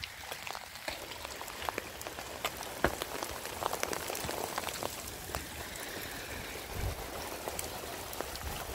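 Rain falling, a steady hiss with many separate drops ticking and pattering on a surface, growing heavier about a second in.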